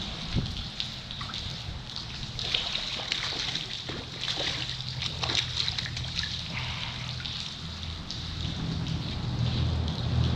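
Rain pattering on open water and on an aluminium jon boat, with water sloshing and dripping as a landing net is dipped into the water and lifted back into the boat. A steady low rumble runs underneath.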